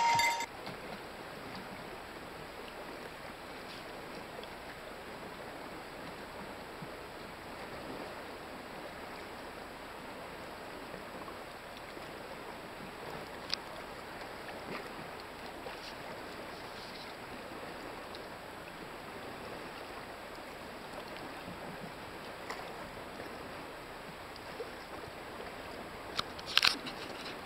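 Choppy lake water lapping around a canoe, a steady rushing wash, with a few short sharp knocks, the loudest near the end.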